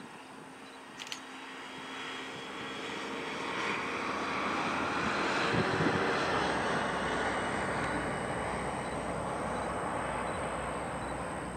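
Jet airliner passing, its engine noise swelling over several seconds to a peak about halfway through and then slowly fading.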